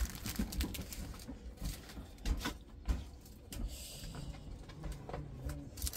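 Scattered light taps and rustles of plastic-bagged diamond-painting drill packets being handled on a wooden table.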